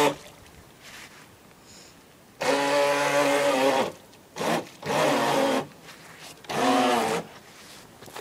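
Small electric motor of a radio-controlled boat whining in several bursts of about half a second to a second and a half, with quiet gaps between, the longest about two and a half seconds in.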